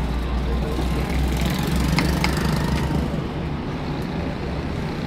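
Steady low rumble of street traffic, with two light metal clinks about two seconds in from a long metal spoon stirring in a large aluminium cooking pot.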